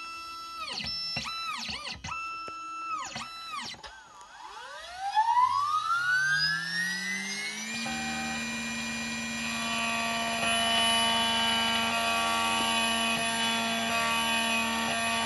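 Xhorse Dolphin key-cutting machine working. First its stepper motors whine in short moves that rise, hold and fall in pitch. About four seconds in, the cutter spindle spins up with a long rising whine, then runs on at a steady pitch.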